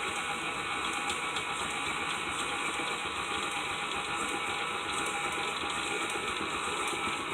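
Electric hand mixer running steadily, its beaters working through a thick batter of cake mix, melted butter and egg.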